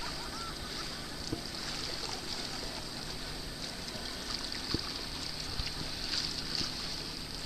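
Open-water ambience: a steady wash of sea water and wind, with a constant high-pitched hiss and a couple of faint knocks.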